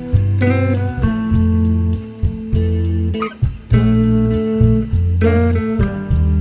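Background music: plucked guitar with a bass line, in a bluesy style.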